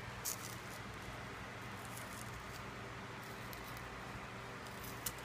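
Faint, short scratching and tearing sounds as the thick skin of a green burro banana is pried up with fingers and peeled off, a few times, over a steady low hum.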